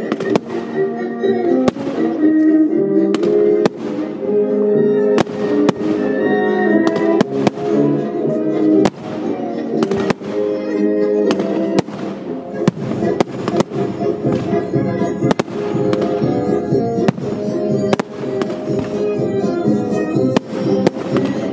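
Aerial fireworks bursting in dozens of sharp bangs and crackles at irregular intervals, over loud music that the display is set to.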